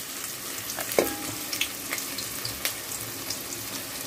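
Sliced onions frying in hot oil in an aluminium pot: a steady sizzle with scattered sharp clicks, and a single knock about a second in.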